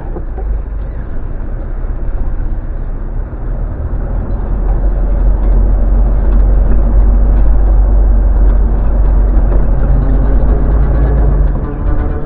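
Loud low rumble inside a moving car's cabin, engine and road noise heavy in the bass, swelling about four seconds in and easing shortly before the end.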